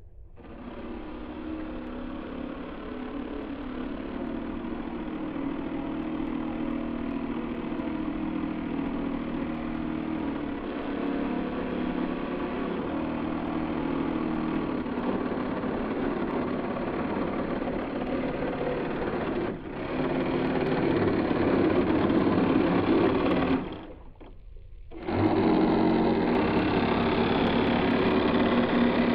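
Small electric motors of a model boat whirring steadily, getting louder about two-thirds of the way through and cutting out briefly near the end.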